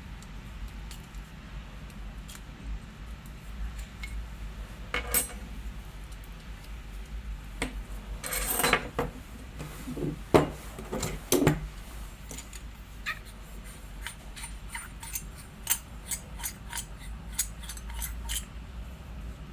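Metal lightsaber hilt parts clinking, clicking and scraping as the saber is taken apart by hand: scattered clicks, two longer scrapes in the first half, then a run of quick small clicks near the end.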